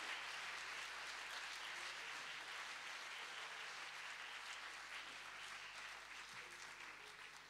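Audience applauding after a song, the clapping slowly dying away over the last couple of seconds.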